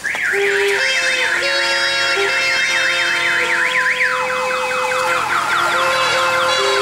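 Electronic vehicle siren sounding a fast up-and-down yelp. About four seconds in it switches to a run of quick falling sweeps, over a steady lower tone that steps between two notes.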